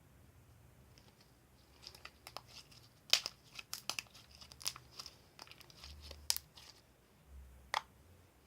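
Homemade slime being handled and squeezed, giving irregular sharp crackling clicks and pops after a quiet first couple of seconds.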